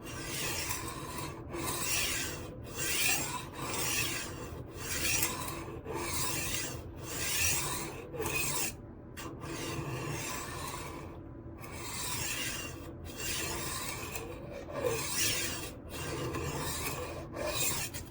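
HORL 3 Cruise rolling knife sharpener's diamond disc rasping along a steel chef's knife edge as the roller is pushed back and forth, about a dozen grinding strokes of roughly a second each with short pauses between, grinding a new edge at 20 degrees.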